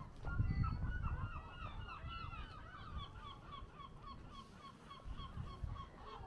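A flock of geese honking: many short, overlapping calls that thin out and grow fainter toward the end.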